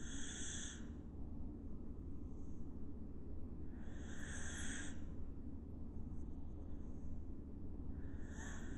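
A sleeping dog snoring: three hissing breaths about four seconds apart, over a steady low background rumble.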